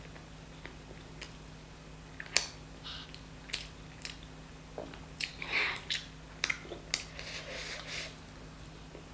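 Close-miked mouth sounds of eating chicken curry with rice: chewing, wet lip smacks and sharp mouth clicks at irregular intervals, the loudest click a little over two seconds in.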